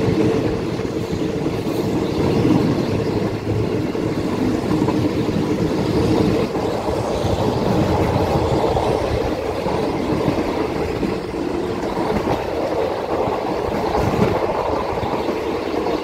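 Passenger train running along the rails, heard from beside an open carriage window: a steady, dense rumble and clatter of the wheels.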